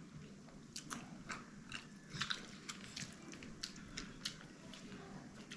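A person chewing food close to the microphone, with faint, irregular wet clicks and smacks of the mouth.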